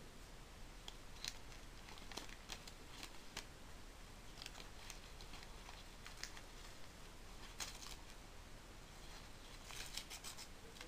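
Paper crinkling and tearing in scattered short crackles as a small dog bites and tugs at a sheet held in a hand.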